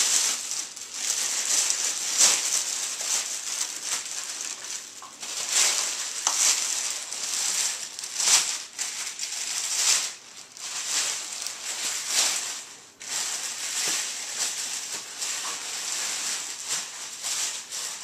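Clear plastic packaging crinkling and rustling as a new upright vacuum cleaner is handled and pulled out of its wrapping, an uneven rustle with louder crackles every second or so and brief lulls.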